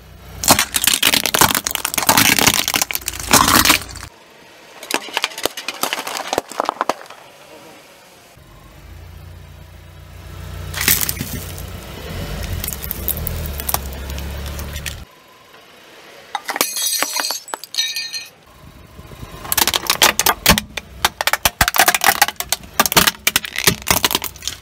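A car tyre rolling over and crushing objects on asphalt in several separate bursts of cracking and crunching: first a row of Christmas baubles shattering, later a mesh cup packed with sweets. Between the bursts there is a low rumble of the tyre and car.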